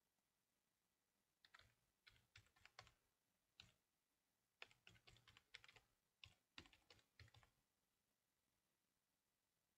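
Faint typing on a computer keyboard: several short runs of keystrokes, starting about a second and a half in and stopping about two seconds before the end.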